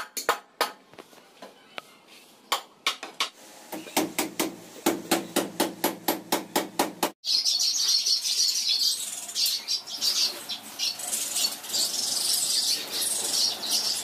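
Hammer nailing a wooden frame: scattered blows at first, then a steady run of about three a second. About halfway through, this gives way to a flock of caged budgerigars chirping continuously.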